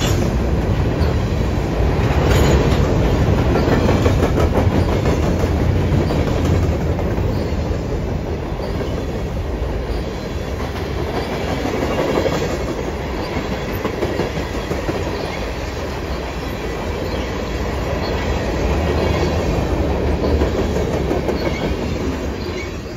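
Freight train cars, covered hoppers and then tank cars, rolling steadily past close by, with a continuous rumble of wheels on the rails. The sound starts to fade near the end as the train draws away.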